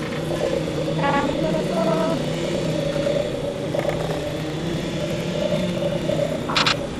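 A motor vehicle's engine running with a steady hum. A few short, higher-pitched sounds come through about a second in, near two seconds, and louder near the end.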